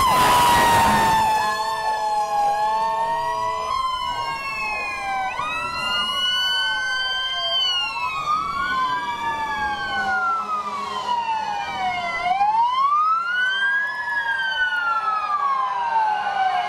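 Several emergency vehicle sirens wailing at once from passing fire apparatus, their tones rising and falling slowly and overlapping out of step. A steady horn tone sounds for about two seconds near the start.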